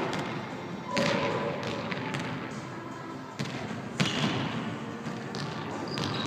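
A basketball bouncing on a hardwood gym floor during play: several irregular, sharp bounces, each ringing out in the large hall's echo.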